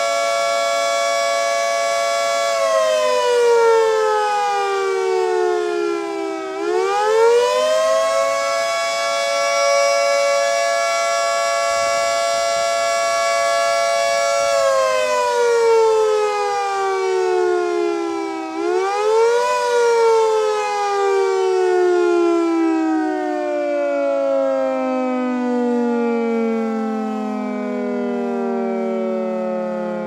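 Federal Signal 3T22A electromechanical siren sounding its attack test signal, a many-toned chord that holds steady, slides down in pitch about two seconds in, climbs back and holds, then slides down again. After a brief rise near the twenty-second mark the chord glides steadily lower in pitch for the last ten seconds.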